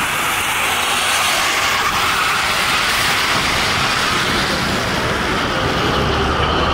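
Steady, even background din of an auto-show exhibition hall, with no single voice or machine standing out.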